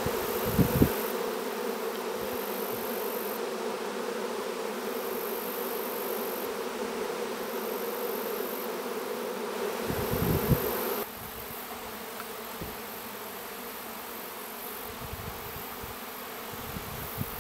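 A honeybee swarm in the air, thousands of bees flying around together in the swarm's early, unsettled stage, making a steady dense buzz. The buzz drops noticeably quieter about eleven seconds in, with a couple of short low bumps near the start and just before the drop.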